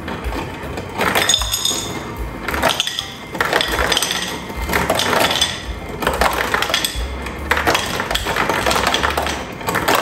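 Ice cubes dropping from an LG side-by-side refrigerator's door dispenser in cube mode and clattering into a glass bowl in a rapid, continuing stream, over background music.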